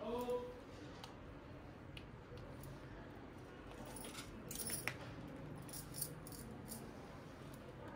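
Faint clinking of bangles on a wrist as the hand moves, a few light jingles in the second half. A short voice sound comes right at the start.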